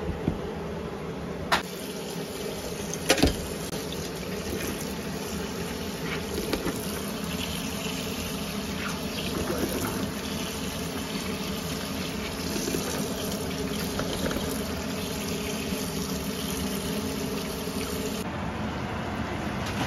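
A hand swishing and scooping black-eyed peas in a bowl of water, with water sloshing and beans rattling. Two sharp knocks come about a second and a half and three seconds in.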